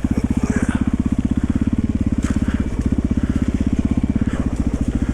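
Yamaha XT350's single-cylinder four-stroke engine running steadily at low revs, each firing pulse heard as an even beat. A few faint crackles come through about two seconds in.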